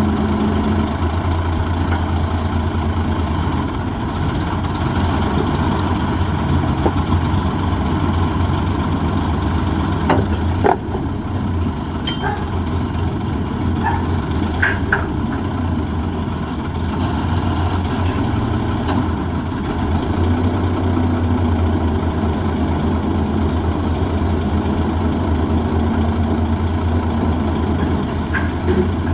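M816 wrecker's six-cylinder Cummins diesel running steadily at a low, even speed during a rollover recovery with the crane boom, with a few sharp knocks about ten seconds in and short squeals a few seconds later.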